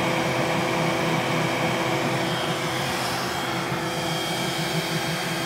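Voxelab Aries 3D printer running a print: steady whir of its cooling fans with a thin high whine over it, and a low motor buzz that shifts unevenly in short steps as the steppers drive the print head.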